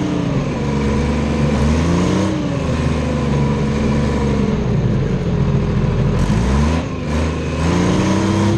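Detroit Diesel 3-53 three-cylinder two-stroke diesel of a Clark 664B skidder running under load as the machine drives, heard close to its exhaust stack. Engine speed rises and falls several times, dropping sharply about six and a half seconds in before picking up again.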